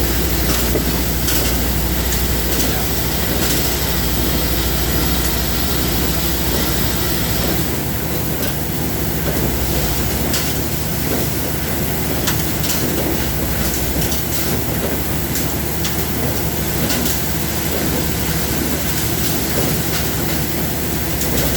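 Steady industrial machinery noise with scattered sharp clicks and knocks. A low hum and a thin high whine both cut out about eight seconds in, while the rest of the machinery noise carries on.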